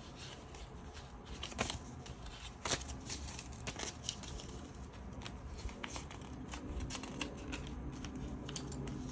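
Paper dollar bills rustling and crinkling as they are picked up from a stack and slipped into a ring-binder cash envelope, with scattered light clicks and taps.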